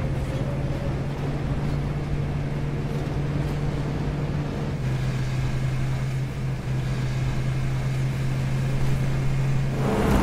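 Steady low engine drone with road noise, as of a motor vehicle being driven. Right at the end a sudden loud rise sets in.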